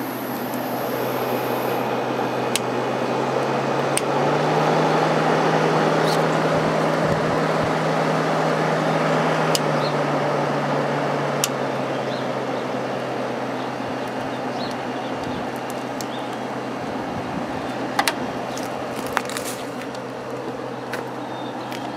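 Vintage Kenmore (Whirlpool) window air conditioner with a Matsushita rotary compressor running on its low fan setting: a steady compressor hum under the whoosh of the fan. The fan noise swells a couple of seconds in and eases off after about ten seconds, and a few faint clicks come near the end.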